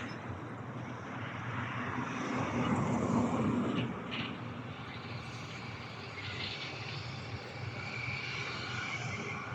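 Airliner jet engines heard at a distance: a steady rumble that swells for a moment, then a thin high whine sets in near the end as the aircraft comes closer.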